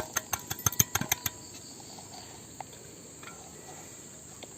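Crickets chirring steadily in the background. In the first second or so, a quick run of light clicks and taps is heard over them.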